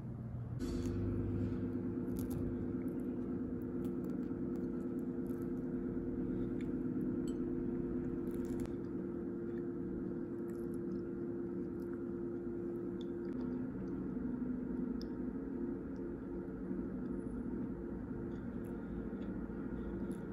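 Crusty baguette sandwich being squeezed, bitten and chewed, its crust crackling in short crunches that come most often in the first half. A steady low hum runs underneath.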